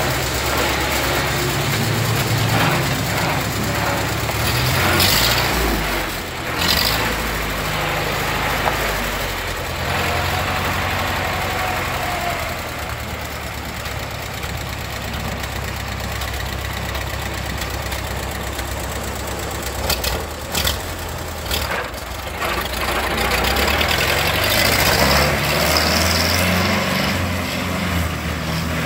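Case VC tractor's four-cylinder engine running as the tractor is driven. The engine speeds up near the end as it pulls away, with a few sharp knocks along the way.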